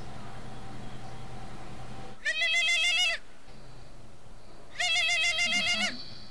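Mobile phone ringing with a goat-bleat ringtone: a wavering bleat about a second long, sounding twice with about a second and a half between calls.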